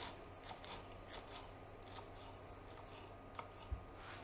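Chef's knife cutting leek on a wooden cutting board: a few soft, sparse taps of the blade, with two sharper knocks near the end.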